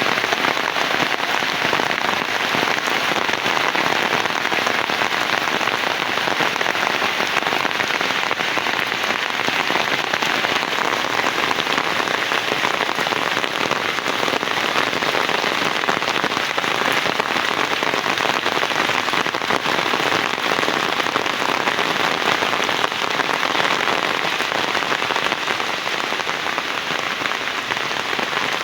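Heavy rain falling steadily: a dense, even hiss of drops that holds at the same strength throughout.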